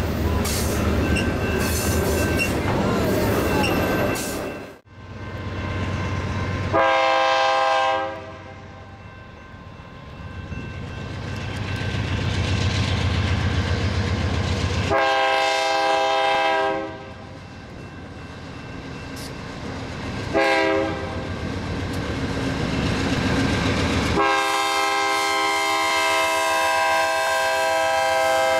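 Freight train rolling past with wheel rumble and rail clatter. Then a BNSF GE C44-9W diesel locomotive approaching at the head of a freight train sounds its air horn in the long, long, short, long grade-crossing pattern, the last blast held about four seconds, over the rising rumble of the engines.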